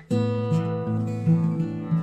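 Epiphone FT79 Texan acoustic guitar, solid Sitka spruce top with mahogany back and sides, strummed through a run of chords that change every half second or so. The sound breaks off for a moment right at the start, then the next chord comes in.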